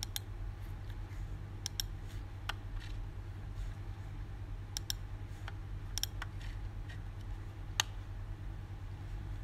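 Computer mouse clicking: about a dozen sharp clicks at irregular intervals, some in quick pairs, over a steady low hum.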